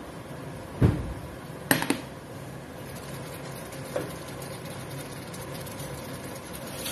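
Stainless steel pot lid being lifted off a frying pan and set down: a dull knock about a second in, a metal clink near two seconds, and a lighter knock about four seconds in.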